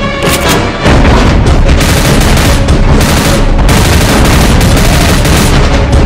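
Loud animated-action soundtrack: dense music mixed with heavy booms and repeated sudden blasts.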